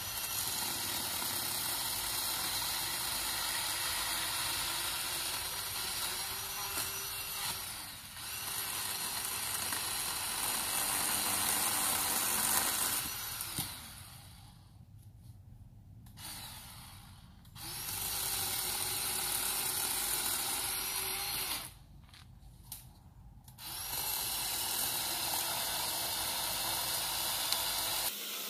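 Craftsman 20V cordless pole saw's electric motor and chain running as it cuts branches, in three long runs: it stops for about four seconds near the middle and for about two seconds later on.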